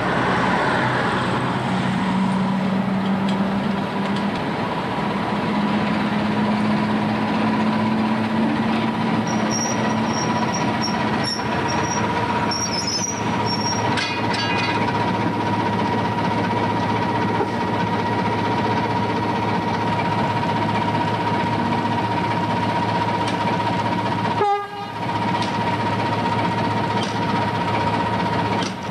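Class 14 diesel-hydraulic locomotive's Paxman Ventura diesel engine running as the locomotive runs round its train, a steady whine over the engine noise. The sound breaks off briefly about 25 seconds in.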